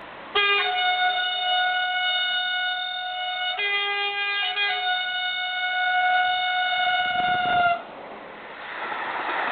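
A train's air horn sounding one long chord of several notes for about seven seconds, the notes shifting briefly around the middle, then cutting off suddenly. A rumble builds up near the end as the train approaches.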